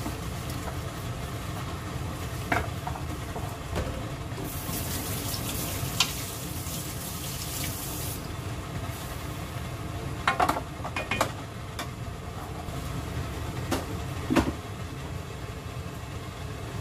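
Chicken stew simmering in a thick red broth as a wooden spatula stirs it, with a stretch of liquid hiss from about five to eight seconds in. Sharp knocks of the spatula against the pan come several times, most in a cluster a little past halfway, over a steady low hum.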